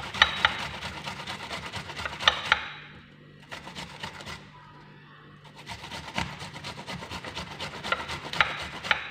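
Red onion being grated by hand on a grater: a quick run of rasping strokes, pausing twice briefly before picking up again.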